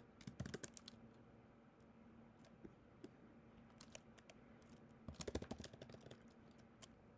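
Faint typing on a computer keyboard in short bursts: a few keystrokes in the first second, a scattered click or two, then a quick run of keys about five seconds in.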